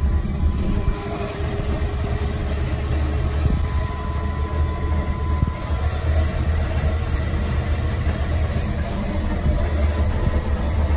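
Induction motor driven by a frequency inverter, running steadily near 1500 rpm: a continuous low hum with a faint steady whine above it.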